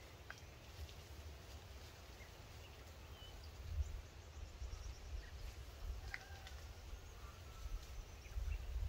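Faint outdoor ambience: scattered short bird chirps, one a longer call about six seconds in, over a low rumble of wind on the microphone.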